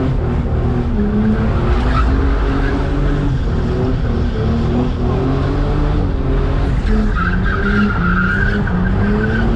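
Car engine held at high revs, rising and falling as the driver skids with the rear wheels spinning, heard from inside the cabin. A high tyre squeal comes in about seven seconds in.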